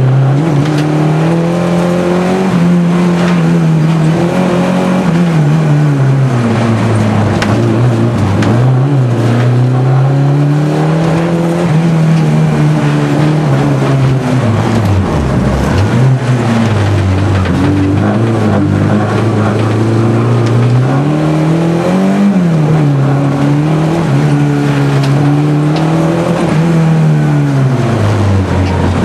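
Opel Corsa A's engine revving hard inside the cabin during a slalom run. Its pitch climbs and drops again and again as the driver accelerates and lifts between the cones, with a deeper drop about halfway through.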